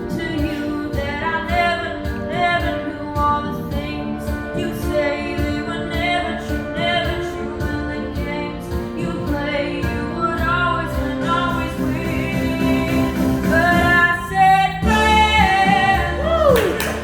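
A song with a lead vocal over instrumental accompaniment; the low accompaniment grows fuller near the end.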